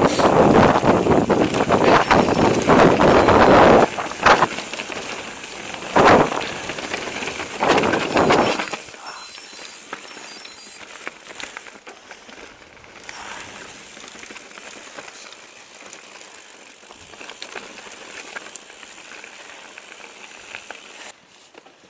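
Mountain bike ridden over a rough forest singletrack: tyres on dirt and stones with the chain and frame rattling over bumps. Loud for the first few seconds and in short bursts up to about nine seconds in, then much quieter.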